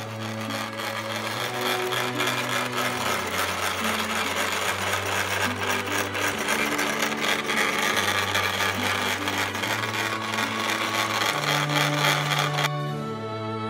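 Singer 411G sewing machine running at speed with a loud, rough clatter that sounds like an old tractor on a cold start, its mechanism gummed with dried-up old oil before cleaning. The clatter stops suddenly near the end, leaving slow background music that plays under it throughout.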